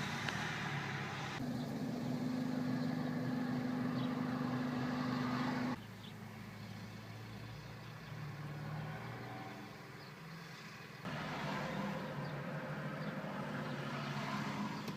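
Classic car engines running steadily at low revs, in several shots that cut abruptly from one to the next.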